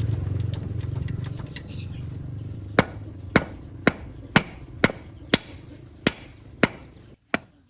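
Hammer striking in a steady rhythm, about two blows a second, nine or so in all. A low rumble fades out before the blows begin.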